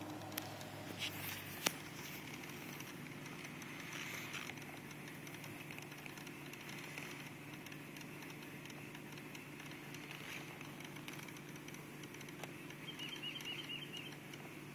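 Clicking from the passenger footwell of a 2004 Toyota Sienna, with the engine idling steadily underneath: a few sharp clicks in the first two seconds and a quick run of faint ticks near the end. The clicking is said to have something to do with the air conditioning.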